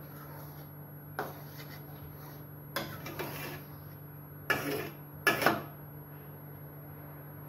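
Metal spoon scraping and knocking against the inside of a stainless steel pot while stirring vermicelli cooking in milk: a few separate strokes, the loudest about four and a half and five and a half seconds in, over a steady low hum.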